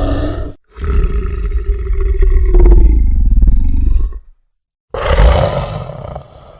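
Monster growl sound effect: deep, loud roaring growls, one cutting off just after the start, a long one of about three and a half seconds, then another that starts about five seconds in and fades away.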